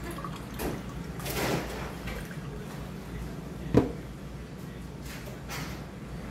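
A plastic water bottle set down on a wooden table with one sharp knock a little under four seconds in, after a few soft swishes of handling.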